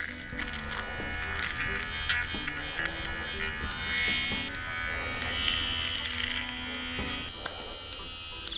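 Erazor battery-powered portable shaver with a rotating ceramic blade, running steadily against stubble on the face and neck with a high-pitched buzz.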